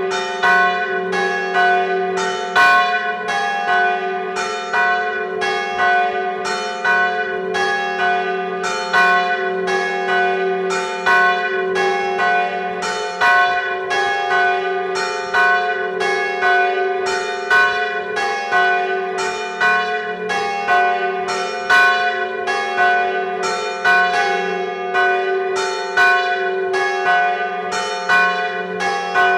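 Church bells ringing a death knell (glas), heard from inside the belfry: the large swinging bell, Charlotte-Catherine, accompanies two smaller bells that are tolled in alternation. Bell strokes come about twice a second over a steady low hum.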